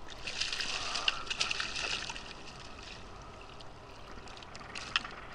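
A hooked weakfish splashing and thrashing at the water's surface beside a kayak, with a burst of splashing in the first couple of seconds, then gentler water sounds as it is scooped into a landing net. A single sharp click near the end.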